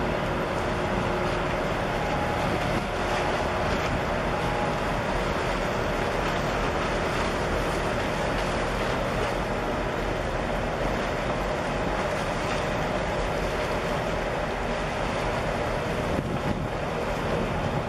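Steady drone of the large container ship Seaspan Raptor's machinery as it passes close by, a faint constant hum under a broad rush of wind and water noise.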